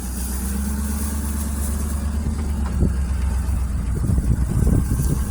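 A motor vehicle's engine running steadily with a low rumble. From about three seconds in, irregular low thumps join it.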